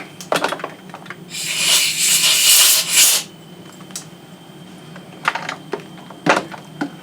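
Compressed-air blow gun blasting machining chips out of the part and vise in one hiss of about two seconds. Sharp metallic clinks come before it and several more after, as the metal part and tooling are handled.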